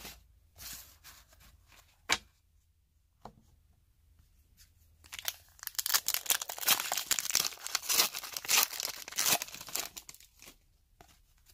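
A foil hockey-card pack wrapper being torn open and crinkled in the hands: a dense run of ripping and crackling starting about five seconds in and lasting about five seconds. A few light taps come before it.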